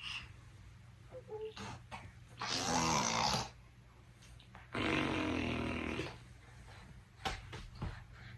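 Baby making two rasping, breathy vocal noises, each about a second long, the first about two and a half seconds in and the second about five seconds in, with a few soft clicks near the end.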